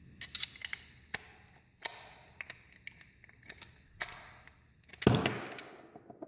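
Sharp metal clicks and clinks of a doorknob lock being taken apart, its cylinder assembly worked out of the knob with a cylinder removal tool, with a louder knock about five seconds in.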